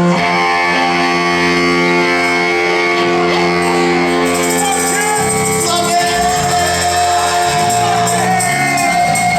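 Live band playing, with sustained guitar and organ-like chords, bass and cymbals, and voices shouting or singing over it.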